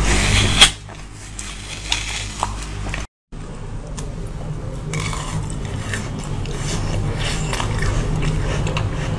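Close-miked biting and chewing of frozen food, heard as scattered crisp cracks and crunches. First a spoon works a frozen filling out of an orange-peel cup; then, after a brief dropout about three seconds in, frosted frozen grapes are bitten and chewed.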